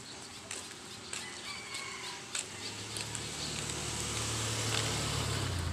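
Roosters crowing faintly and footsteps scuffing along a road; from about halfway through, a vehicle's engine hum grows steadily louder as it approaches.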